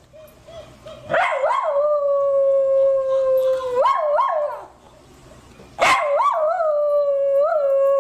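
Miniature pinscher howling: two long, high, held howls, each opening with a couple of short rising yelps. The first begins about a second in and the second starts shortly before the end.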